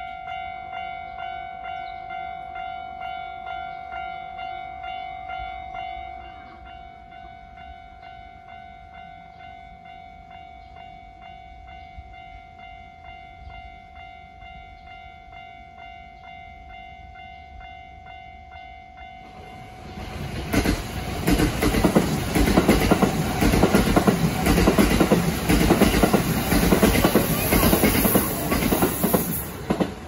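Japanese level-crossing warning bell dinging steadily in an even rhythm, dropping in volume about six seconds in. A Kintetsu Osaka Line electric train then passes over the crossing for about ten seconds, its wheels loudly rushing and clattering on the rails, with the bell still ringing underneath.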